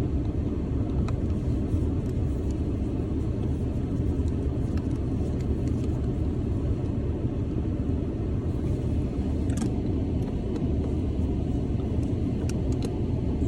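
Steady rumble of a pickup's cab heater fan blowing on high, with a few faint clicks of small parts being handled.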